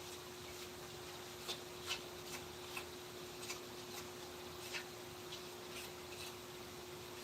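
Faint, irregular clicks and short scrapes of small hand-tool work on a wooden carving, about one or two a second, over a steady faint hum.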